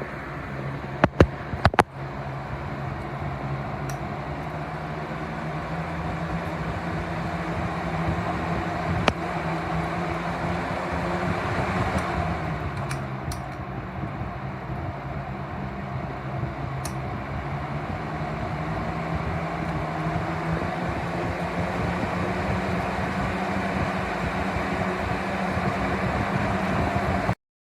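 Pelonis 20-inch four-blade box fan running steadily: a motor hum under a broad rush of moving air. A few sharp clicks about a second in, and the sound cuts out for a moment near the end.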